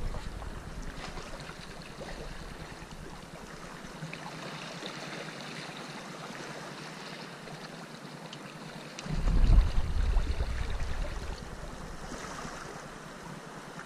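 Small sea waves washing against breakwater rocks, a steady rushing wash. About nine seconds in, a loud low rumble rises for a couple of seconds and then fades back under the wash.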